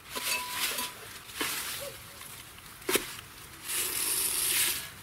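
Old metal car wheel hubs being handled and set down on dry leaves: leaf rustling, a single sharp knock about three seconds in, then about a second of crisp rustling through the leaves.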